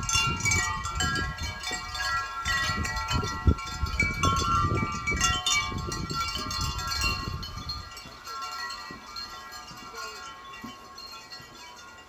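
Wind chimes ringing in the wind, many overlapping tones struck again and again. A low gusting rumble of wind on the microphone runs under them and dies down about eight seconds in, leaving the chimes quieter and sparser.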